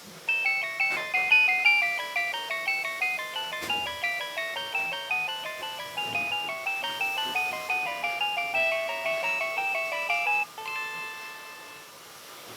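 Nokia 3120 mobile phone ringtone: a quick, bright synthesized melody of short notes in several voices at once, ending a little after ten seconds on a few held notes that fade away.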